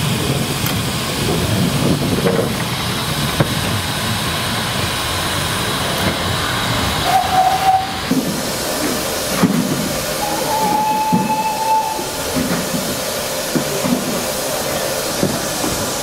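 Narrow gauge steam locomotive hissing steam steadily, with two short whistle blasts, one about seven seconds in and a longer, slightly higher one about ten seconds in.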